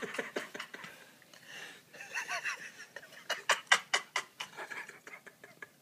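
Stifled snickering laughter in quick breathy bursts, loudest about three to four seconds in, with a short voiced giggle just before.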